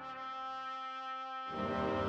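Background music of long, held chords, moving to a new, fuller chord about a second and a half in.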